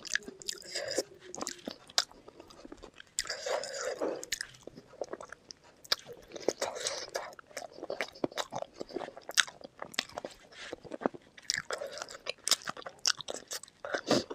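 Close-miked eating sounds from a spicy chicken feet curry and Maggi noodle meal: steady chewing and biting, with many sharp, irregular crunchy clicks and wet mouth noises between them.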